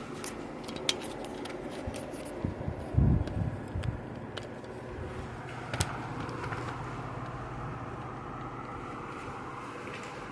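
Loren Sid 40 cm table fan running steadily, a constant rush of air with a light hum. A few clicks come in the first half, and a low thump about three seconds in is the loudest moment.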